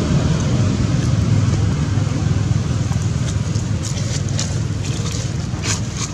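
Wind buffeting the microphone: a steady, uneven low rumble. In the second half come a few light crackles of dry leaves as a macaque walks over the leaf litter.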